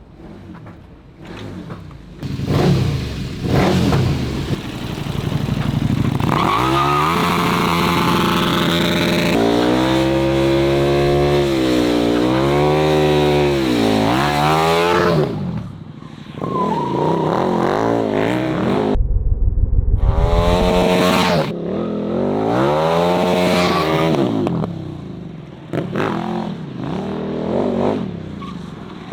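KTM 1290 Super Duke R's V-twin engine through an Austin Racing full titanium exhaust, revving hard, its pitch sweeping up and down again and again. About two-thirds of the way through, it briefly drops to a low rumble.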